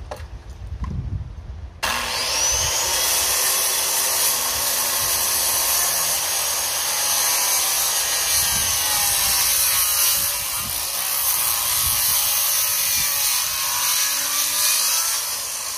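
An electric power saw starts about two seconds in, its motor whining up to speed. It then runs steadily, cutting through a wooden stair-stringer board for about fourteen seconds, and stops suddenly near the end.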